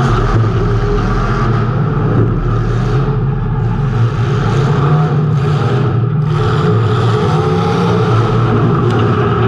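Race car engine running hard at speed, heard from an on-car camera, with its note easing off briefly about three and six seconds in before picking back up.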